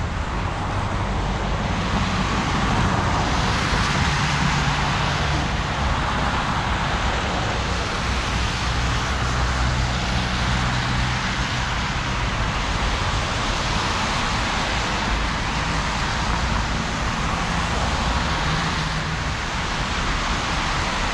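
Steady city traffic on a wet, slushy road: a continuous hiss of tyres with a low engine hum from passing cars.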